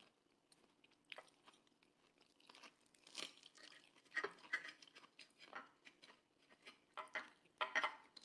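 A person chewing close to the microphone: faint, scattered crunchy clicks, with a small cluster near the end.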